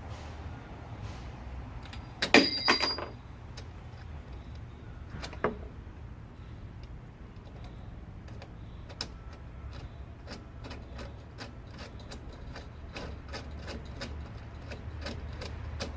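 Metal hardware and hand tools clinking while a cable railing turnbuckle is being worked: a loud metallic clatter with a brief ring about two seconds in, a single click a few seconds later, then many light irregular ticks. A steady low rumble sits underneath.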